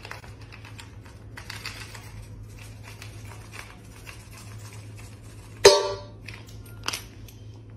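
Dry kibble rattling and clicking as it is poured from a plastic scoop into a stainless steel dog bowl. Then a sharp metallic clang with the bowl ringing briefly, and a smaller clink a second later as the dog starts eating.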